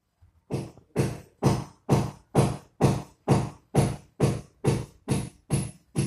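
Music: a drum beat of evenly spaced strokes, a little over two a second, starting about half a second in.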